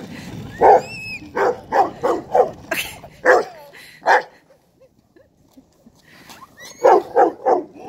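Rottweiler barking in quick runs of short barks, about three a second, with a pause of about two seconds in the middle and a fast burst of four near the end.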